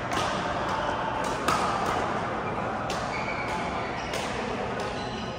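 Badminton rackets striking a shuttlecock in a doubles rally: sharp hits every half second to a second, the loudest about a second and a half in, echoing in a large hall over a murmur of voices.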